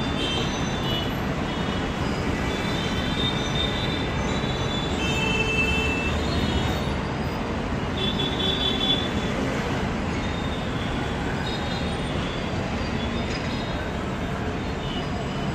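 Steady road traffic noise, an even rumble with faint high squeals over it now and then.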